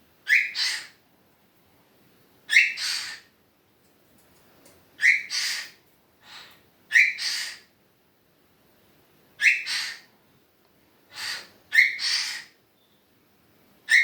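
Pet parrot imitating a sneeze over and over, about six times, roughly every two to two and a half seconds: each one a sharp short onset followed by a breathy burst, with a few fainter single bursts in between.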